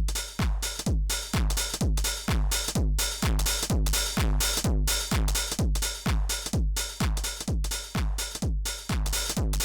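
House-style drum machine loop: a kick drum on every beat, about two a second, each one dropping in pitch, with off-beat hi-hats between them.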